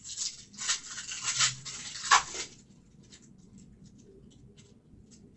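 Trading cards and their packaging being handled: a run of short papery rustles and slides over the first two and a half seconds, the loudest a little after two seconds, then only faint light clicks.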